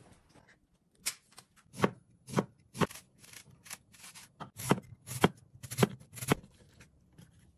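Cleaver slicing an apple into rings on a bamboo cutting board: eight sharp knocks of the blade meeting the board, in two runs of four about half a second apart.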